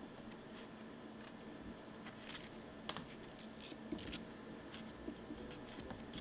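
Faint rustling and scattered light ticks of stiff cardstock photo prints being handled and swapped between the hands, over a low steady room hum.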